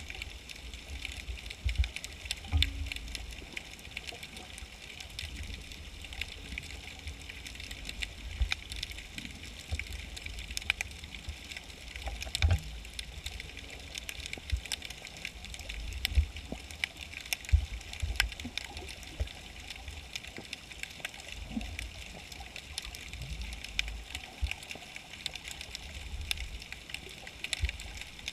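Underwater ambience heard through a waterproof camera housing: a steady scatter of sharp clicks and crackles over a low, uneven rumble of moving water.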